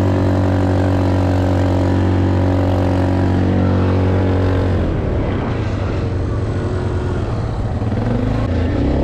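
ATV engine running at a steady speed. About five seconds in, its even note gives way to a rougher, uneven sound, and its pitch rises a little near the end.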